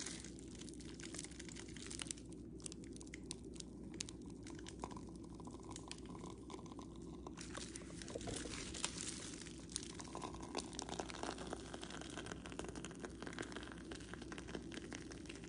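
Plastic piping bag crinkling and crackling as it is squeezed to pipe whipped body butter into a plastic jar, with many small scattered clicks over a faint steady hum.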